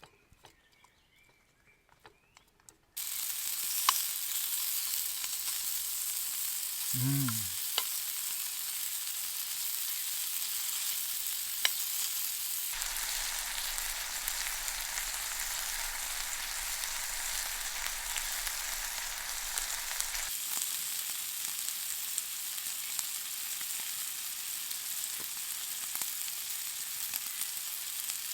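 Food frying in a pan over a wood fire: a steady, hissing sizzle that starts suddenly about three seconds in, with a few sharp crackles. About seven seconds in there is a brief low sound falling in pitch.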